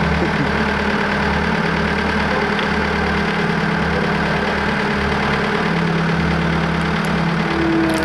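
Road roller's engine running steadily, with a low, uneven throb underneath.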